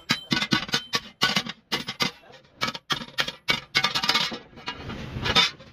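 Hand hammer beating the steel blade of a kassi, a broad digging hoe, on a small anvil: a quick, uneven run of sharp metallic clinks, about three or four blows a second, each with a short ring.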